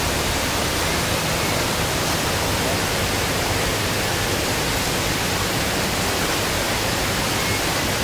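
Water rushing steadily as it pours in a shallow cascade down concrete steps, a continuous even rush.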